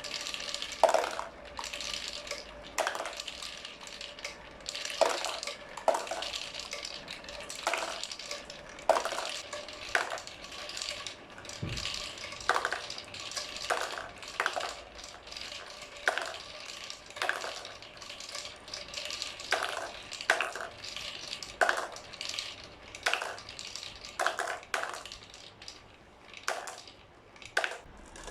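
Marbles rolling and rattling through PVC pipe track, a continuous rolling noise broken by frequent sharp clacks as they knock against the pipes and each other.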